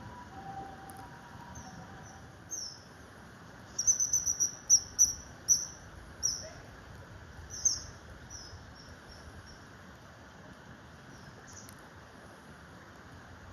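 Common kingfisher giving short, high, shrill calls, scattered at first, then in a quick loud run a few seconds in, tailing off after that. Underneath is a steady low background rumble.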